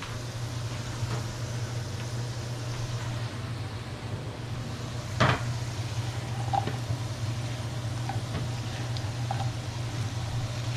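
Diced potatoes sizzling in oil in a nonstick frying pan over a turned-down gas flame, stirred with a plastic spatula, with one sharp knock about five seconds in and a few light taps after it. A steady low hum runs underneath.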